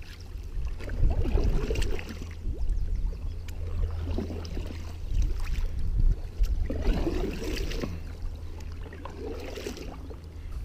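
Canoe paddles pulling through river water from an inflatable canoe, a splashing stroke about every two and a half seconds, four in all, over a steady low rumble.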